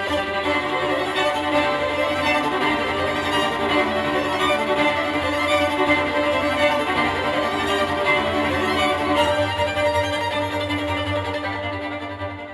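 Violin-led bowed string music in a classical style, played back through a Tektron 2A3/300B tube amplifier and Cube Audio Jazzon fullrange speakers and recorded by microphone as a listening demo. Sustained string notes, getting slightly softer near the end.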